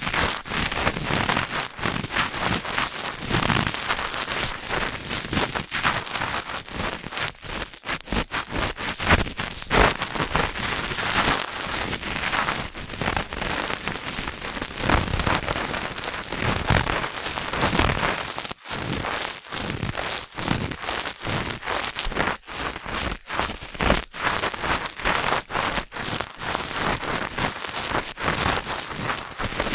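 Cotton swabs rubbing and scratching in the ears of a binaural dummy-head microphone: dense, close crackling and rustling that goes on without a break, with uneven strokes and brief pauses.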